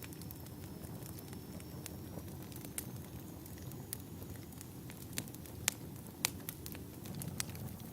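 Log fire burning in a fireplace: a steady low rumble of the flames with scattered sharp crackles and pops from the burning wood, coming more often and louder in the second half.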